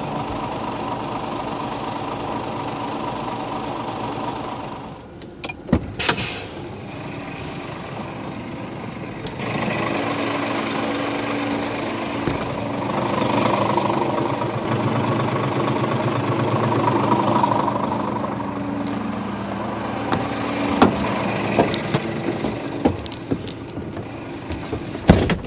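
Scania truck's diesel engine idling, a steady low hum, with a few sharp clicks and knocks, most of them in the last few seconds.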